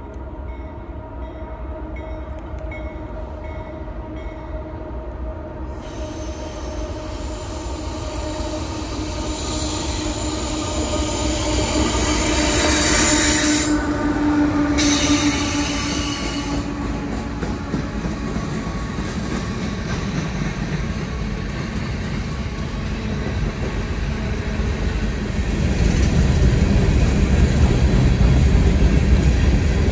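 Union Pacific diesel freight locomotives approaching and passing, growing louder to a peak about 13 seconds in. After that comes the steady rumble and wheel noise of coal cars rolling by, loudest and deepest near the end.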